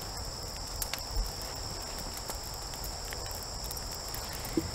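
Crickets chirping steadily at night, a continuous high trill, with a couple of faint soft ticks about a second in.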